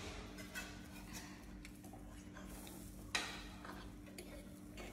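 Spoons and forks clinking and scraping on plates while people eat: a few light, scattered clicks, the sharpest about three seconds in, over a steady low hum.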